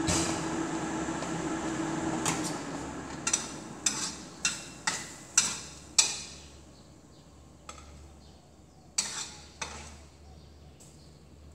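Metal spatula clanking and scraping against a wok as cooked ampalaya (bitter melon) with egg is dished out. There is a run of sharp strikes about every half second, then a few scattered taps. A steady hum dies away in the first three seconds.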